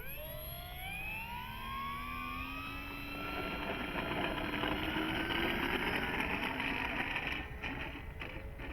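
Electric brushless motor and propeller of an FMS Cessna 182 1.5 m RC plane on a 4S battery, spinning up for takeoff. The whine rises in pitch over the first few seconds, then holds steady and grows louder, with a drop near the end.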